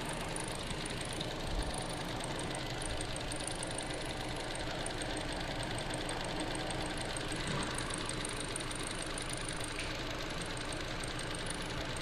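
2012 Hyundai Elantra's four-cylinder engine idling steadily, with a fine fast ticking. The engine has a cylinder 3 misfire from a shorted ignition coil, yet it makes no obvious abnormal noise.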